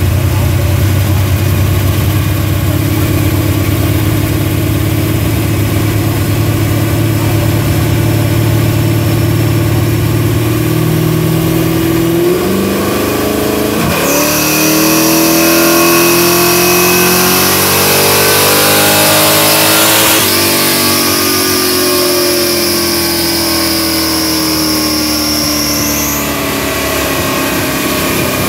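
A 1968 Chevelle SS's V8 runs on a chassis dynamometer. Its revs climb slowly, then sharply, and it is held at high revs under load for several seconds with a high whine alongside. It then eases off and winds down, its pitch falling slowly.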